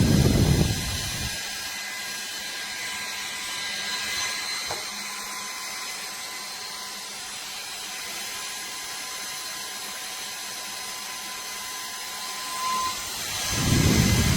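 Handheld turbo fan's small high-speed motor running, a steady high-pitched whine over an airy hiss. For about the first second and again near the end, the air stream blows across the microphone in a loud low rumble.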